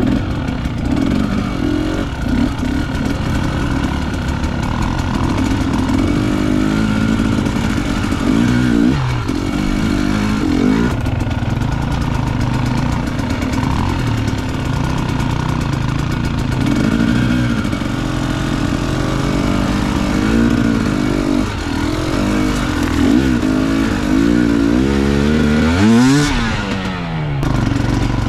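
Dirt bike engines running on an off-road ride, the engine note rising and falling as the throttle is opened and closed. There is a hard rev near the end.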